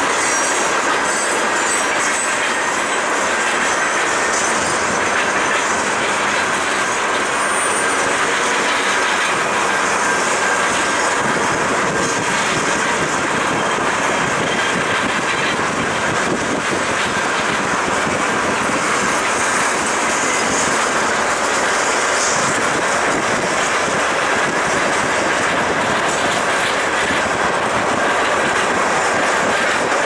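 Freight cars of a mixed freight train, tank cars, lumber-loaded flatcars and boxcars, rolling past at speed: a loud, steady rush of steel wheels on the rails.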